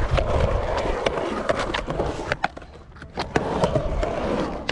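Skateboard rolling across a concrete bowl: a steady rumble of wheels on concrete with sharp clicks and clacks scattered through. The rumble drops away for about a second near the middle, then picks up again.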